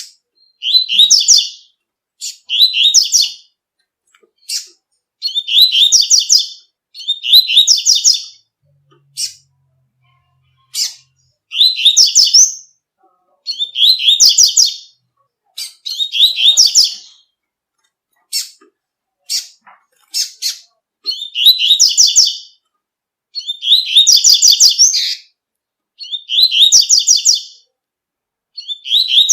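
Double-collared seedeater (coleiro) singing its 'tui-tui' song: loud, high phrases about a second long, repeated every couple of seconds, with single short high notes in between.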